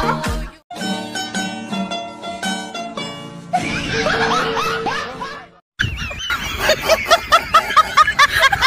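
Light background music with plucked notes, then after a short break a person laughing in rapid repeated 'ha' sounds.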